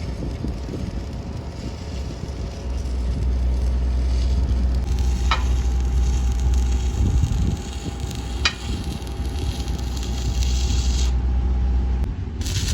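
Stick-welding arc crackling and hissing steadily, with two sharp pops partway through and a break near the end, over the steady low hum of a running engine.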